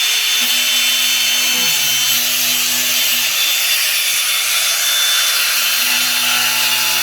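Angle grinder running steadily, its disc cutting into a cardboard box with a continuous high-pitched hiss.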